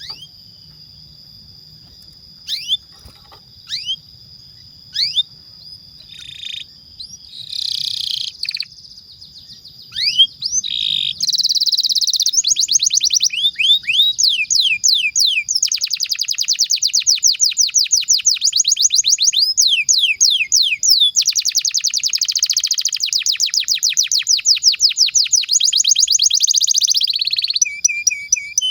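Domestic canary singing: a few separate sweeping chirps at first, then, about eleven seconds in, a long fast rolling trill of rapidly repeated notes, the 'ngerol' song prized in a gacor canary.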